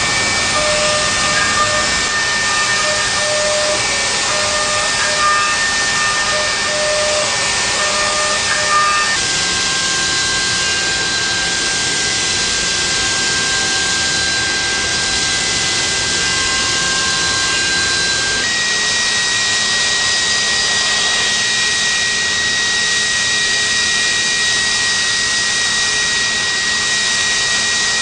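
Mazak Nexus 700D-II vertical machining center milling a metal block with a small ball-end mill: a steady hiss from the coolant nozzles over a high spindle whine. The whine steps down a little about nine seconds in and rises again near nineteen seconds.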